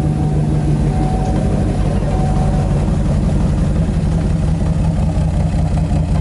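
Fifth-generation Chevrolet Camaro SS 6.2-litre V8 idling steadily just after start-up, on its stock exhaust before long-tube headers are fitted.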